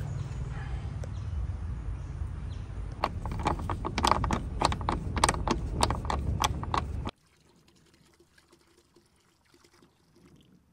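Socket ratchet wrench clicking as a bolt is turned, a run of sharp clicks about four a second over a steady low rumble. The sound cuts off abruptly about seven seconds in and gives way to faint pouring of coolant into a plastic bucket.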